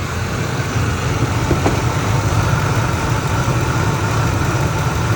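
2003 Ford Expedition's V8 engine idling steadily while it warms up, still short of operating temperature.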